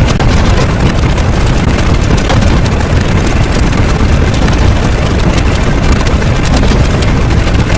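Loud, continuous rumbling noise with a crackly texture and no clear pitch, like a heavy engine or a blast of wind-like roar.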